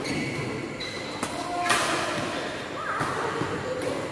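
Badminton play: two sharp racket-on-shuttlecock hits about a second in, half a second apart, with high-pitched squeaks of shoes on the court mat during the first couple of seconds.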